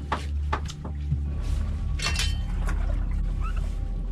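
Water sloshing against a small boat's hull over a steady low hum, with a few sharp clicks in the first second, under background music.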